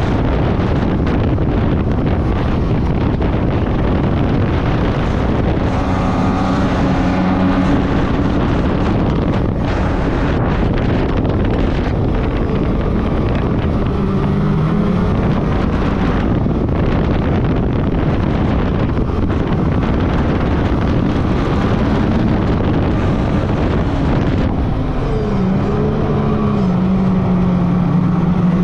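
Snowmobile engine running under way, its note shifting up and down in pitch several times and growing stronger near the end, under a heavy rush of wind noise on the microphone.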